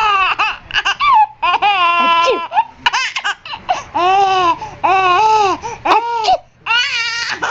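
A baby laughing in a run of about nine high-pitched bursts, each rising and falling in pitch, with one longer drawn-out laugh about two seconds in.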